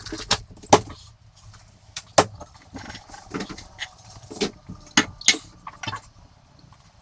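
Household items being picked up and set down while tidying a room: a string of irregular sharp clicks, knocks and clinks, the loudest just under a second in and a little past two seconds in.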